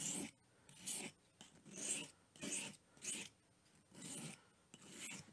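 Small pocket-knife blade swiped across a coarse 240-grit sharpening stone, seven short scraping strokes at roughly one a second, as the edge is honed.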